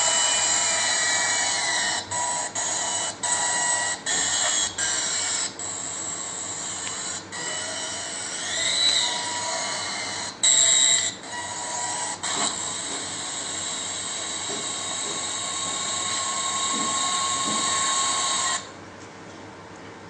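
The soundtrack of a video played back through loudspeakers: a high-pitched whirring hiss with steady tones and a few gliding notes. It drops out briefly several times in the first few seconds and cuts off suddenly near the end.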